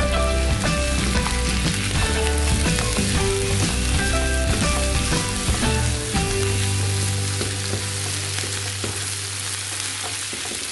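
Diced potatoes, pork belly and onions sizzling in a hot nonstick frying pan. A spatula stirs and turns them through the first several seconds, then the steady sizzle carries on alone.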